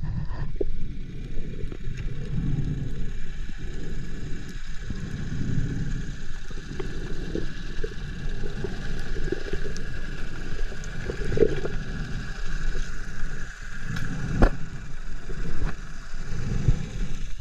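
Muffled underwater sound picked up by a camera in its waterproof housing: a low, surging water rumble with gurgling, under a faint steady hum. There is one sharp click about fourteen seconds in.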